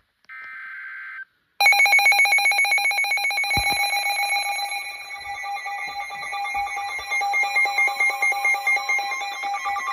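A short burst of SAME digital header data, then about a second and a half in a loud, rapidly pulsing electronic alert tone starts and keeps sounding: an emergency alert receiver going off for a new warning, here a tornado warning.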